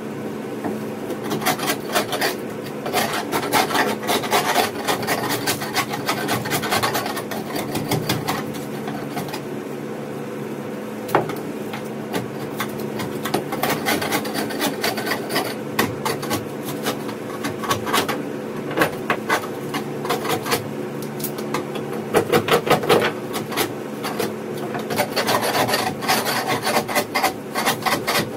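Long-handled scraper scraping leftover foam off a fiberglass boat hull bottom in repeated bursts of short strokes, over a steady background hum.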